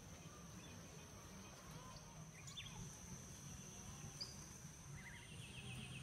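Quiet outdoor ambience: a steady high-pitched insect drone with a few short bird calls over it. There is a falling chirp about halfway through, then two quick trills of repeated notes near the end.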